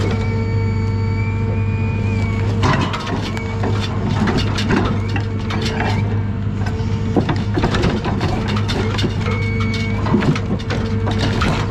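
John Deere 1010G forwarder's diesel engine running steadily under hydraulic load, with a thin hydraulic whine rising and falling as the crane works. From about two and a half seconds in, the grapple is lowered and closes on the logs in the load, and the logs knock and scrape against each other and the grapple in a run of irregular clunks.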